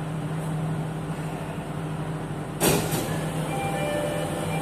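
Interior of a Jakarta MRT train car standing at a station: a steady hum from the car's equipment, broken by a short, sharp burst of noise about two and a half seconds in, with faint short tones after it.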